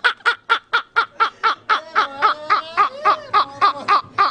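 A man's high-pitched, rapid laughter: an unbroken run of short "ha" pulses, about five or six a second.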